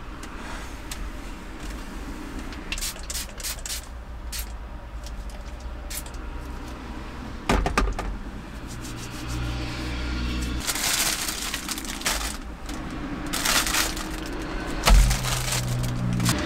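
Plastic grocery bags and food packaging crinkling as they are handled and set down on a wooden table, with scattered clicks and a couple of knocks, over a steady low hum.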